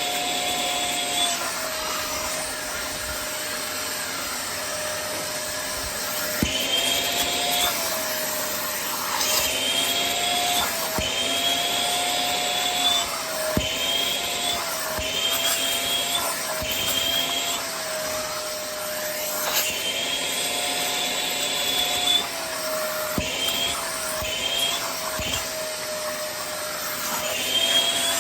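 Vacuum cleaner running, its motor whine rising and falling in pitch over and over, with a higher whine that comes and goes and a few sharp knocks.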